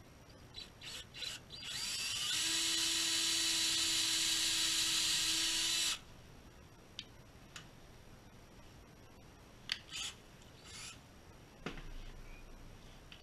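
DeWalt cordless drill drilling a small hole into the tip of a turned wooden mouse body: after a few short trigger blips the motor winds up and runs with a steady whine for about three and a half seconds, then stops abruptly. A few clicks and a knock follow.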